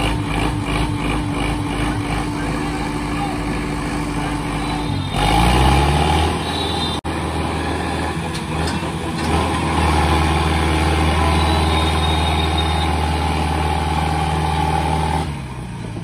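Diesel tractor engines pulling against each other in a tractor tug-of-war: a throbbing run, then revved up about five seconds in and held at high revs under load, dropping back near the end.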